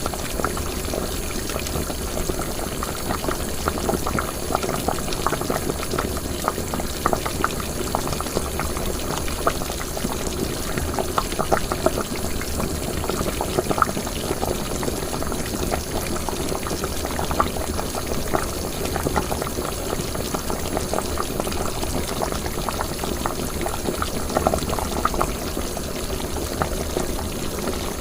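Liquid in a cooking pot bubbling at a steady boil, with a constant stream of small pops and gurgles.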